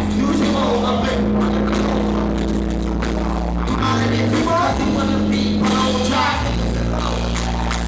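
Live hip-hop through a concert PA: a beat with a deep bass line of held notes changing every second or two, with rappers' voices over it.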